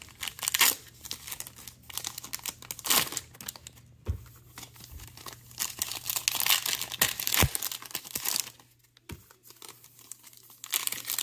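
Foil trading-card pack wrappers crinkling and tearing open in the hands, in irregular bursts with short pauses, and a couple of dull knocks.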